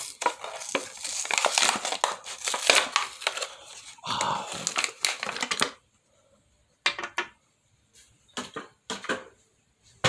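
Clear plastic blister packaging crinkling and crackling as it is pulled apart and crushed by hand, for about six seconds. A few light taps and knocks follow.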